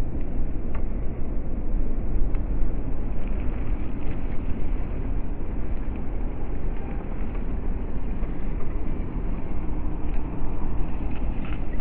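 Electric motor and gearbox of a WPL C24 Toyota Hilux RC crawler truck running steadily as it drives through tall grass, over a low rumble.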